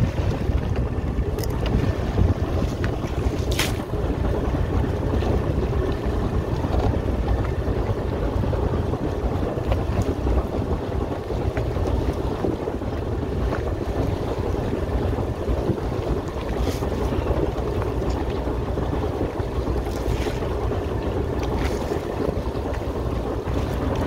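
Fishing boat under way: a steady low engine drone and water rushing along the hull, with wind on the microphone. A few light knocks stand out at scattered moments.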